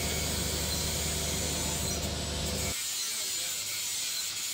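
Electric angle grinder with a cutting disc running, cutting through the steel wire ends of a welded cage-mesh panel. About three seconds in, the low hum cuts out abruptly and a higher grinding noise carries on.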